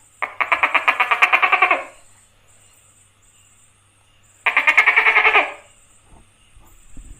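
Tokay gecko calling: two bouts of a rapid pulsing rattle of about ten pulses a second, the first about a second and a half long, the second about a second long a few seconds later.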